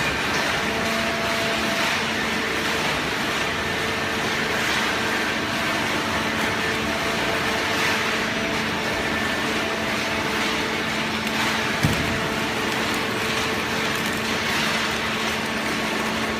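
Automatic hydraulic cardboard baler running: a steady machine noise with a constant hum from its hydraulic pump. There is a single sharp knock about twelve seconds in.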